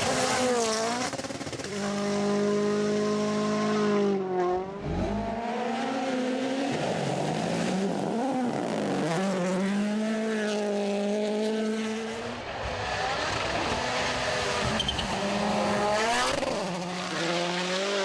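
WRC Rally1 cars' turbocharged 1.6-litre four-cylinder engines at full throttle on a gravel stage. The revs climb and drop again and again through gear changes and passes, with a little whistling sound.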